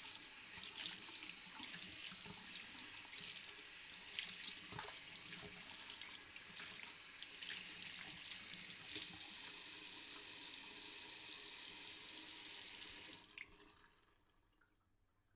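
Tap water running into a sink while hands are washed under it, with irregular splashes. About 13 seconds in the water cuts off suddenly, and a faint trickle fades away.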